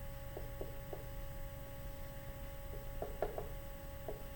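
Pen or stylus writing: faint short taps in small clusters, a few near the start and a few more about three seconds in, over a steady electrical hum.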